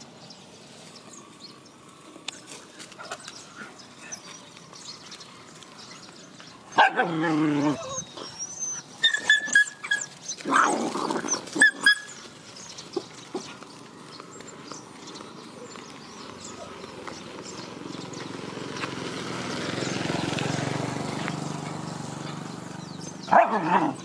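Dogs barking and yelping during rough play. The barks come in short outbursts about seven seconds in and again around ten to twelve seconds, with a stretch of rushing noise later and another bark just before the end.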